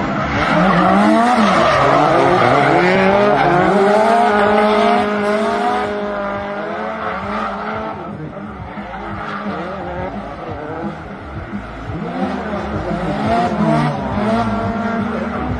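Drift cars sliding in tandem, their engines revving up and down on and off the throttle over tyre squeal. Loudest in the first five seconds, quieter past the middle, rising again near the end.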